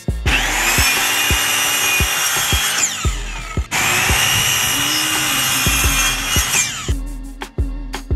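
Ryobi miter saw making two cuts through trim, each about three seconds long and ending in a falling whine as the blade spins down. A hip-hop beat plays underneath.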